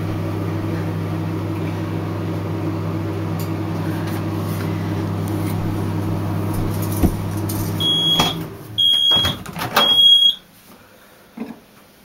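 Microwave oven running with a steady hum, a click shortly before it shuts off about eight seconds in, then three short high end-of-cycle beeps about a second apart.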